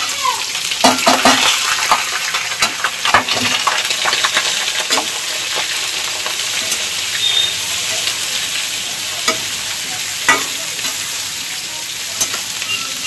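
Sliced onions sizzling in hot oil in a steel kadhai, with a metal spatula scraping and clinking against the pan as they are stirred. The clinks come thickest in the first few seconds, then fewer over a steady sizzle.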